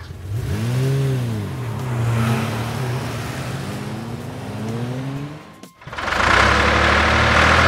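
Sports car engine sound effect revving up and down about a second in, then running on with a wavering pitch as the car pulls away, cutting off shortly before the end. Right after, a tractor engine starts running steadily and louder.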